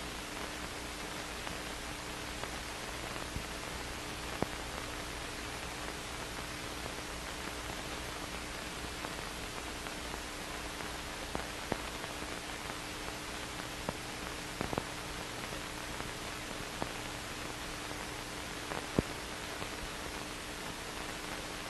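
Steady hiss with a faint low hum and a few scattered faint clicks: the noise floor of an old 1960s film soundtrack.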